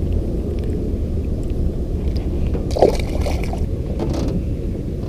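Steady low wind rumble on the microphone over lapping water, with a few faint clicks and a brief louder sound just under three seconds in.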